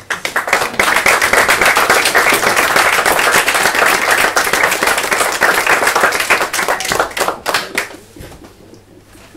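Audience applauding, starting at once and dying away into a few last claps about eight seconds in.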